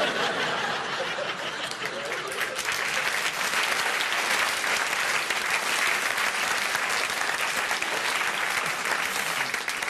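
A large live audience applauding, a dense, steady round of clapping.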